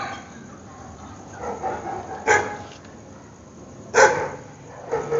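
Dogs barking, several separate barks over a few seconds, the loudest about two and four seconds in.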